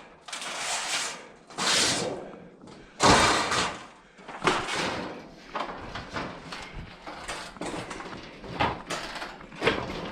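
Sheet steel being bent and handled on a hand sheet-metal brake: a run of clanks and rattling scrapes, the loudest about three seconds in, then smaller knocks. The steel is stiff and hard to bend on this brake.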